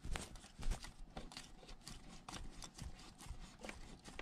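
Faint, irregular small clicks and light knocks of hands moving loosened engine parts and fittings aside in a diesel engine bay.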